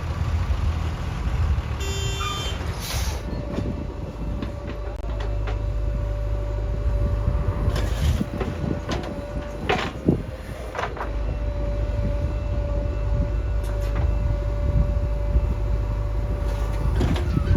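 Heavy diesel engine of a backhoe loader running steadily, with a steady whine over it and a few sharp metallic knocks.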